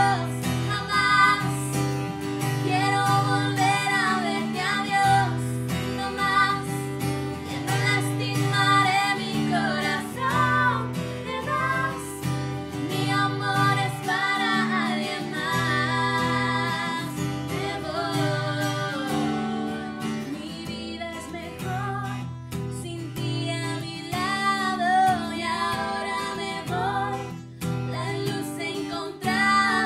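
Two women singing a song together, accompanied by a strummed acoustic guitar.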